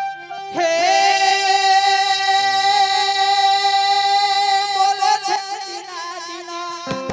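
Live devotional folk singing: a singer holds one long wavering note over a steady accompanying drone, and the melody moves on about five seconds in. Drum strokes, likely tabla, start right at the end.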